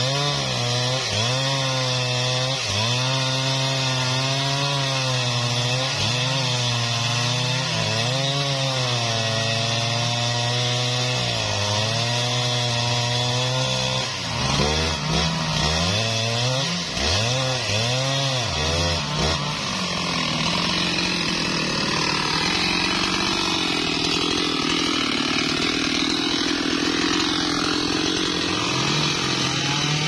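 A large two-stroke gas chainsaw cutting through a mahogany log under load, its engine pitch sagging and recovering as the chain bites. About halfway through, the pitch rises and falls sharply several times, and in the last third it runs as a rougher, steadier cut.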